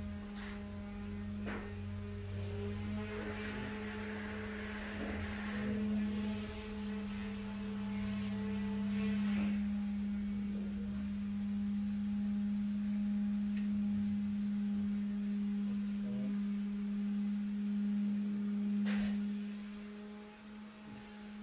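A steady low hum held at one fixed pitch, with a few faint clicks.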